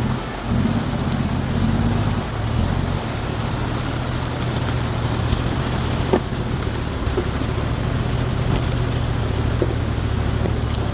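Toyota Land Cruiser 80 Series diesel engine running, its pitch rising and falling over the first few seconds and then holding a steady drone under a wash of rolling noise.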